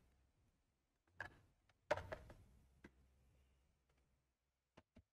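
A few faint clicks and knocks of hands handling things on a workbench, the loudest a single knock about two seconds in, with two quick ticks near the end; otherwise near silence.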